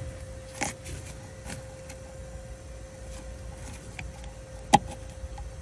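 Small plastic clicks and knocks of a wiring connector being pushed onto a BMW E90's ABS/DSC control unit: a few light ones, then one sharp click near the end. A faint steady hum runs underneath.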